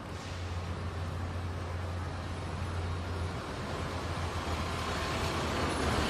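Mini skid steer loader's engine running with a steady low hum; about halfway through, the sound turns rougher and grows louder.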